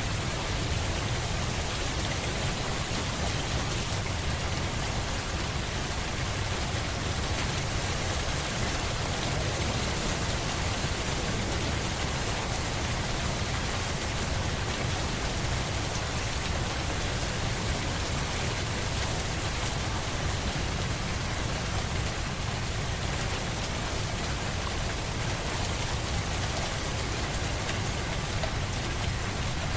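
Steady rain, an even dense hiss of drops with a low rumble underneath.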